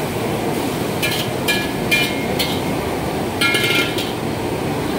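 Dishes and metal utensils clinking: four single clinks, then a quick run of clinks about three and a half seconds in, over the steady roar of a busy restaurant kitchen.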